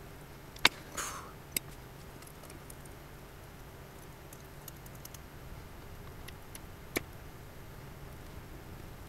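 Hand pin drill twisting a fine bit into a small metal ring piece: a faint scraping of bit on metal with a few sharp metallic clicks, the loudest just under a second in, a short scrape right after it, and another click near the end.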